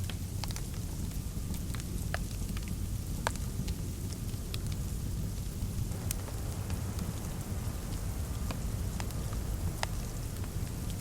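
Fireplace crackling: irregular sharp pops and snaps over a steady low rumble.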